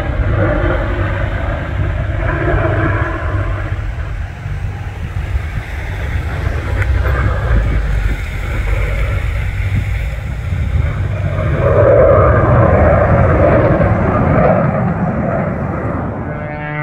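Aircraft engine noise at an airshow, a rushing rumble with no clear tone that swells to its loudest about twelve seconds in and then fades, with wind on the microphone.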